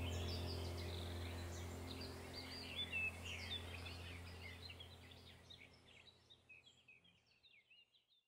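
Birds chirping, with a steady low hum beneath, the whole fading out to silence near the end.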